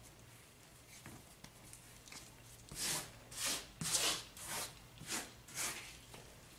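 Hands kneading a ball of marshmallow fondant on a powdered-sugar-dusted silicone mat: a run of six rubbing strokes, about two a second, starting a little before the middle.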